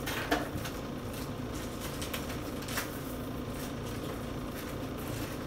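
Steady low room hum with light handling clicks: one sharp click about a third of a second in and a fainter one near the three-second mark.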